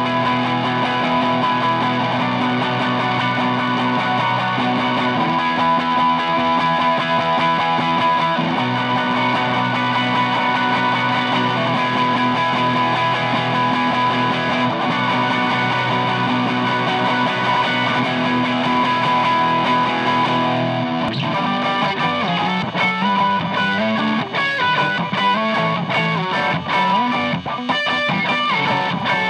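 Electric guitar played through a DOD Juice Box FX51 overdrive pedal, with a DOD Bifet Boost 410 switched on: overdriven chords are held and left to ring. About two-thirds of the way through there is a click, and the playing turns into shorter, choppier strummed chords.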